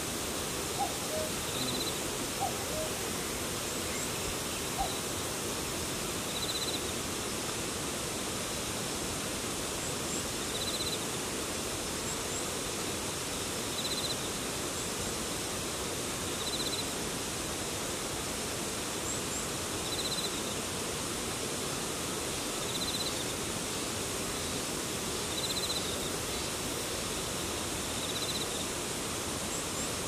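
A common cuckoo calls its two-note falling 'cuck-oo' three times in the first five seconds. A grass insect gives a short, high, pulsed chirp about every three seconds over a steady even hiss.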